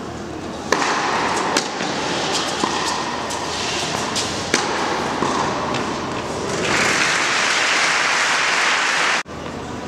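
Tennis rally: a series of sharp racket-on-ball strikes and bounces, then steady applause from about seven seconds in that cuts off suddenly near the end.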